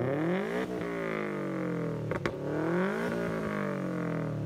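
Car engine revving, its pitch rising and falling a few times.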